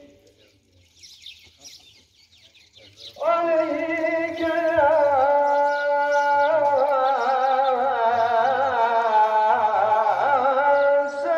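A male voice chanting the Islamic funeral sela (selâ) in a long, wavering, ornamented melodic line, beginning about three seconds in after a pause between phrases.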